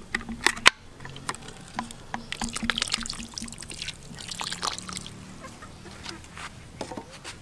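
White seasoning granules poured from a can onto spiny lobsters in an aluminium pot, the falling grains making a dense, irregular patter of small ticks.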